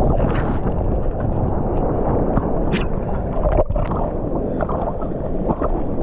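Churning whitewater and splashing close to the water surface after a breaking wave: a dull, low, steady rush with scattered sharp splashes.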